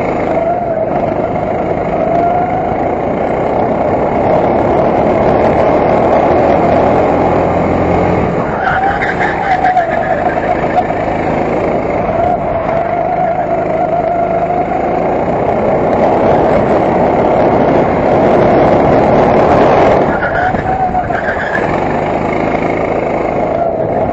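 Racing kart engine heard close up from the kart itself, running hard with its note wavering up and down through the laps. The note dips twice, about eight and twenty seconds in, and climbs again.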